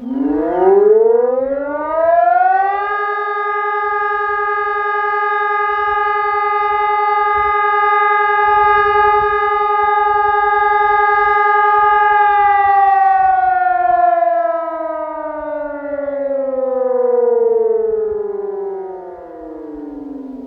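Ergatec EWS4 electronic siren sounding one tone of the German 'Feueralarm' test signal. Its pitch rises over about three seconds, holds steady for about nine, then slowly falls away over the last eight seconds.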